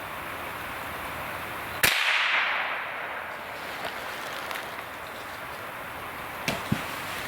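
A single .22LR rifle shot from a Savage .22: one sharp crack about two seconds in, with a short tail after it. It sits over a steady hiss, and two faint clicks follow near the end.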